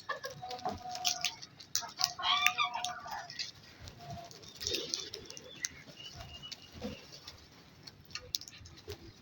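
Birds calling in short, varied calls, the loudest between two and three seconds in, with scattered light taps and clicks.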